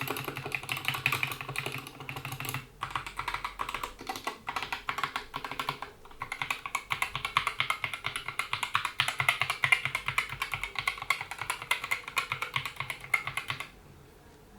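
Fast continuous typing on a GK61 mechanical keyboard with Gateron optical switches, PBT keycaps and rubber O-ring dampeners under the keys: a dense patter of key clicks with brief pauses about 3 and 6 seconds in. The typing stops shortly before the end.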